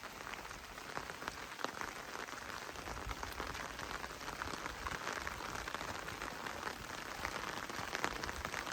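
Heavy rain falling steadily, with many separate drop impacts ticking through the hiss.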